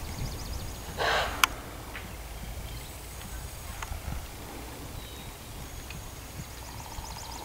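Hooves of a Dutch Harness Horse mare thudding dully on sandy arena footing as she trots loose. About a second in there is a short rushing burst, then a single sharp crack, the loudest sound.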